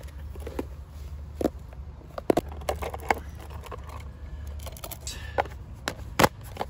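Small folding metal gas stove burner being packed into its hard red plastic case: scattered light clicks and scrapes of metal against plastic, with a sharper click about six seconds in as the case is closed.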